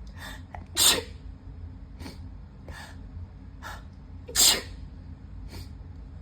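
A person in a sniffly sneezing fit: two loud sneezes, about a second in and again about four and a half seconds in, with short sniffs between them.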